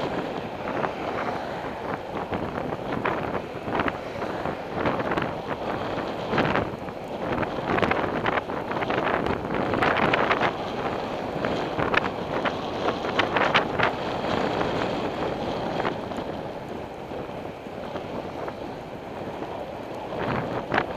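Wind buffeting the microphone of a camera riding on a moving bicycle, a rushing noise that swells and dips in gusts every second or so.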